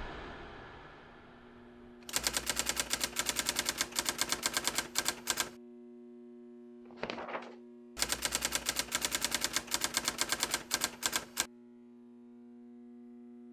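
Typewriter typing sound effect: two runs of rapid keystroke clacks, each about three and a half seconds long, with a brief swish between them, over a low steady hum.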